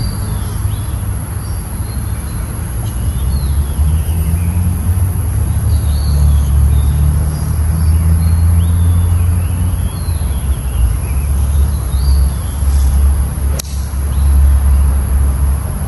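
Steady low rumble of road traffic with birds chirping. About 13.5 seconds in comes a single sharp click: a 5 iron striking a golf ball off the tee.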